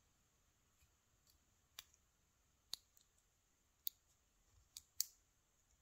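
Faint, separate small metal clicks, about six of them spaced roughly a second apart, from a brass lock cylinder being handled while a shim is worked in around its plug.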